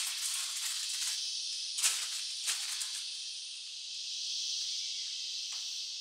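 Steady high-pitched drone of tropical forest insects, with a fast rattling pulse in the first second and two sharp clicks about two and two and a half seconds in.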